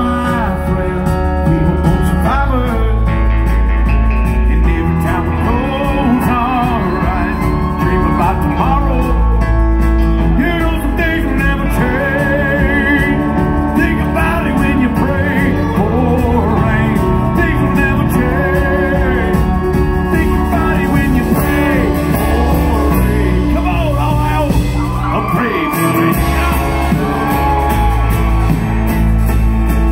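Live country-rock band playing an instrumental break: strummed acoustic guitar, bass and drums under a lead line of bending, wavering notes.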